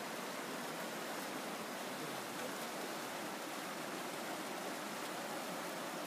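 Small mountain river rushing over rocks, a steady even rush of whitewater.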